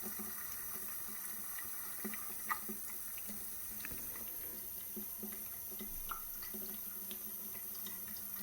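Bathroom sink faucet running a thin, steady stream into the basin, with small scattered splashes. The flow is weak, which the owner takes to be a water-pressure problem.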